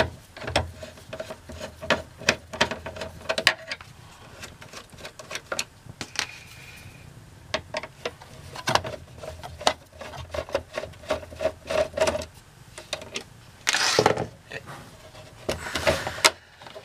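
Hand screwdriver backing out the screws that hold an RV power converter in its compartment: irregular clicks, ticks and scraping of metal on metal, with two longer, louder scrapes near the end as the loosened cover is moved.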